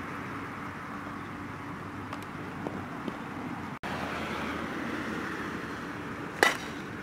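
Steady outdoor background hiss with a faint hum of distant traffic, cutting out for an instant a little past the middle. Near the end comes a single loud, sharp crack, typical of a softball being hit by a bat.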